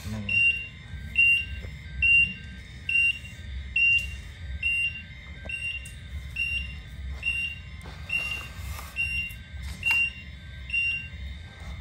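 RC Volvo FH16 truck's sound module sounding its reversing beeper: a high beep repeating a little more than once a second over a low simulated diesel rumble. The beeping stops about a second before the end.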